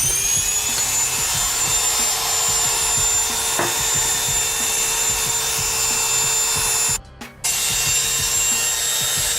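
Oster A5 Turbo two-speed clipper running steadily with its blade on, having just spun up to speed, the motor's high whine holding level; freshly repaired link and lever, running without clicking. The sound briefly cuts out about seven seconds in, then carries on.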